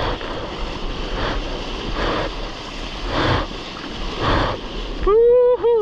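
Sea water rushing and splashing around a surfboard-mounted camera as a surfer paddles prone, swelling with each arm stroke about once a second. Near the end a loud two-part whoop cuts in.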